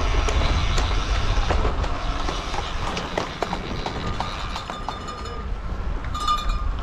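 Wind rushing over the microphone of a road bike's camera as the cyclist rides, with scattered claps from roadside spectators and a short ringing tone near the end.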